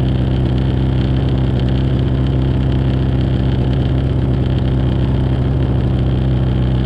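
Snowmobile engine idling steadily while the sled stands still.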